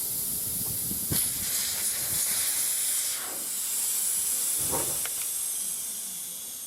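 Air hissing out of a car tyre through the valve stem with its valve core removed, the tyre deflating; the hiss fades away near the end. A couple of light knocks around a second and five seconds in.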